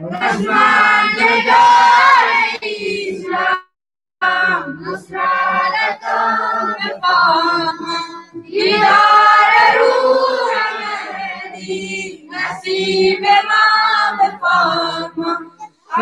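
A child singing a devotional chant through a microphone, in long, held melodic lines with a brief break about four seconds in.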